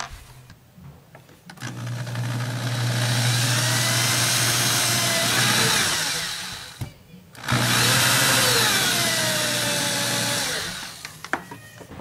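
Cordless drill pre-drilling a pilot hole into a wooden screen door for a door-closer bracket screw. It runs twice, about five seconds and then three seconds, with a short pause about seven seconds in, and the motor's whine shifts in pitch as it bites.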